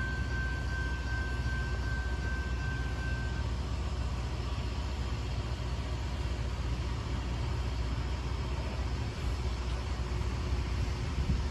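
Hi-rail fire-suppression water truck running slowly along the siding: a steady low engine rumble. A thin high whine stops about three seconds in.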